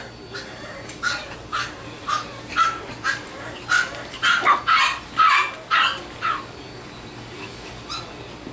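Bichon Frise puppies yapping, a quick series of about a dozen short, high-pitched yips that stops about six seconds in.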